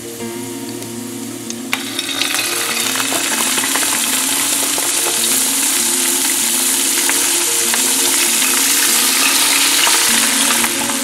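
Trout fillets frying in hot oil in a stainless steel frying pan: a steady sizzle that gets louder about two seconds in and stays strong to the end, with a second fillet laid into the pan near the end.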